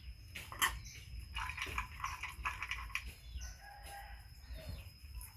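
Scattered small clicks and knocks, with a few short animal calls: a brief steady call about halfway through and faint high chirps near the end.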